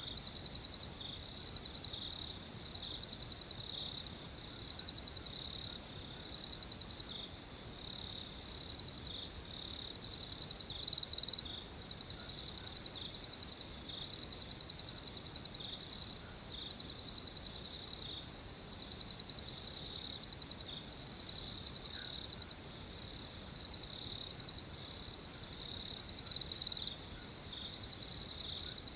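Crickets chirping at night: a high-pitched, rapidly pulsing trill repeated in runs of about a second with short breaks. Two louder, brighter bursts stand out, one about eleven seconds in and one near the end.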